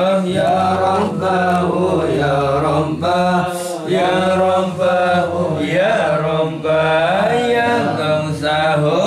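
A group of men chanting Islamic dhikr together in Arabic, a slow melodic recitation of drawn-out syllables over a steady low hum of voices.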